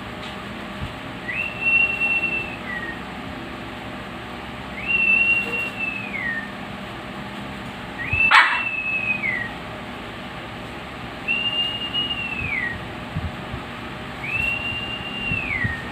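A parrot whistling the same call five times, about every three seconds: each a held high note that drops in pitch at the end. A single sharp click comes about halfway through.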